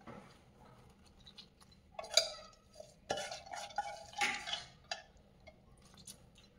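Soaked moong dal being tipped from a steel bowl into a glass bowl of rice flour: a few clinks and knocks of the vessels about two, three and four seconds in, with a short metallic ring.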